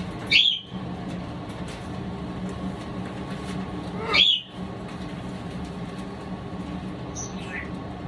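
Pet parrot calling: two loud, short calls about four seconds apart, each rising and falling in pitch, and a fainter one near the end, over a steady low hum.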